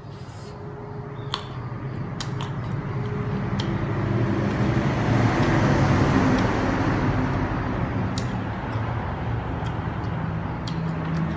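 A motor vehicle passing: a low engine noise that swells to a peak about halfway through and then slowly fades. A few short sharp clicks sound over it as June plums are handled and bitten.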